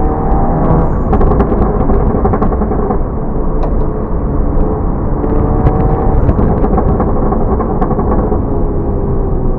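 Volkswagen Mk7 GTI's turbocharged 2.0-litre four-cylinder through an aftermarket 5150 Racing exhaust, revving up and down under driving with scattered sharp pops and crackles from the exhaust, clustered about a second in and again around four to six seconds in.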